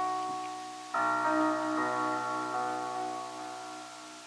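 Upright piano: a chord is ringing, then a second, fuller chord is struck about a second in and left to fade.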